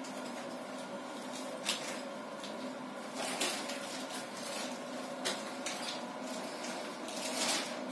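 Quiet room with a steady low hum, broken by a few faint clicks and taps of plastic TV remote controls being handled by a toddler on a bed.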